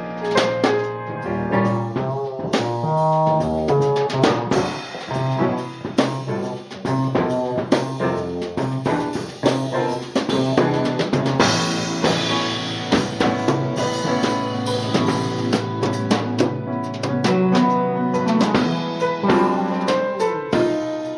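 Band music from a song demo: a drum kit playing busy, regular beats with snare and bass drum over bass and sustained pitched instruments.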